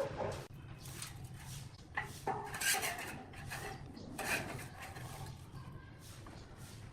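Irregular clattering knocks and clinks over a steady low hum.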